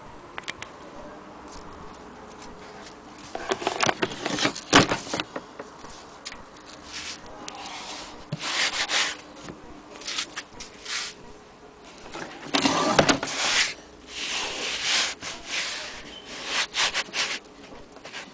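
A hand rubbing and handling the black covering of an HMV Model 102 portable gramophone's case, in irregular swishing strokes. The strokes start a few seconds in, with a couple of sharp knocks among them.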